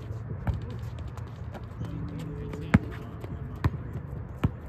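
Basketball bouncing: four sharp bounces, the last three a little under a second apart, the loudest about halfway through.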